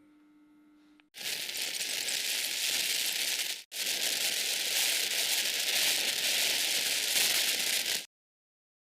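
Water rushing from a tap in a steady hiss, broken off briefly once about halfway through and cut off suddenly near the end.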